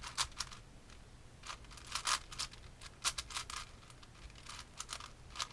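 Plastic puzzle cube being turned by hand: quick runs of clicking and clacking as the layers are twisted, coming in irregular bursts.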